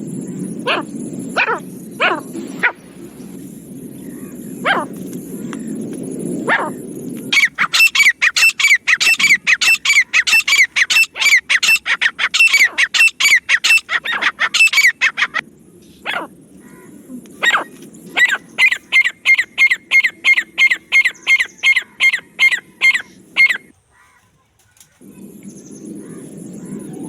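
Francolin calling: a few sharp single calls over a low steady hum, then a fast run of loud repeated call notes, about five a second for some eight seconds. After a short pause comes a second, steadier run of about three notes a second for some six seconds.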